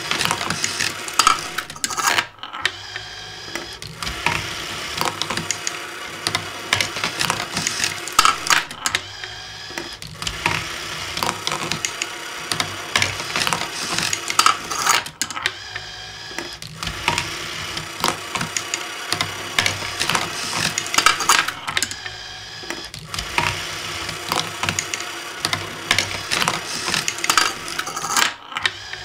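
Junk-built marble machine running: small salvaged mechanisms (CD-ROM drive lifters, receipt-printer parts) whirring, with marbles clicking and rattling along plastic and wooden tracks. The busy clatter breaks off briefly about every six and a half seconds as the machine goes through its cycle.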